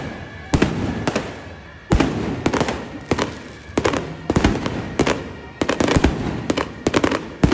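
Firecrackers going off in loud, irregular bangs, about two a second, each trailing an echo.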